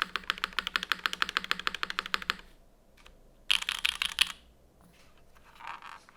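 Fast typing on a polycarbonate mechanical keyboard with stock Gateron RAW linear switches, o-ring mounted, with GMK keycaps: a quick run of keystrokes that stops about two and a half seconds in. About a second later comes a short, dense, louder flurry of keys, then a brief softer patch near the end.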